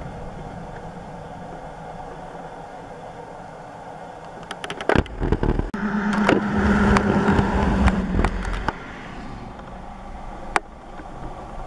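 A low steady rumble, then a cluster of sharp knocks and rattles about five seconds in, followed by a vehicle's engine running, heard from inside its cabin, with a steady hum for a few seconds before it fades back to a quieter rumble.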